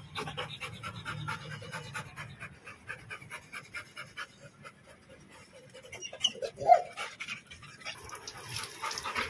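Labrador retriever panting rapidly in quick, even breaths, with a short louder sound about six and a half seconds in.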